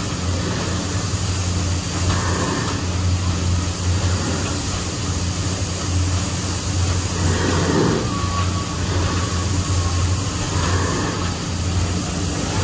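Steady low hum of the Liberty Belle's machinery as the steam-powered sternwheel riverboat cruises under way.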